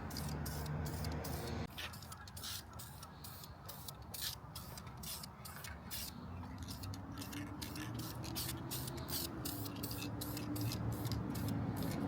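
Aerosol spray can of black paint hissing in short, rapid bursts as the Dana 60 rear axle housing is coated, over a low background hum.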